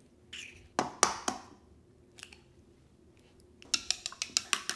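Eggs being cracked into a bowl: a few sharp cracking taps in the first second and a half. Near the end the eggs are whisked briskly in the bowl, a quick even clicking of about six strokes a second.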